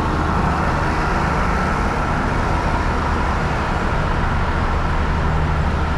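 Diesel passenger train standing with its engines idling: a steady low hum under an even noise that does not change.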